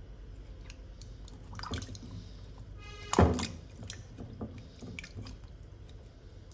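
Water splashing and sloshing in a stainless steel bowl as a hand rubs and turns peeled taro corms in salt water, rinsing off the darkening after a soak. There are small scattered splashes, with one louder splash about three seconds in.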